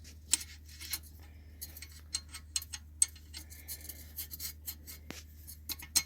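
Irregular light clicks and rubbing of the compound-coated lapping tool being worked into the pinion-side bearing race of a Harley-Davidson Panhead crankcase half, with one sharper click about three seconds in.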